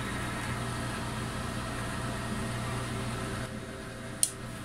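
Fans of a powered-up bench-test PC running, the power supply fan and CPU cooler fan giving a steady hum with a few steady tones. A single short, sharp click sounds near the end.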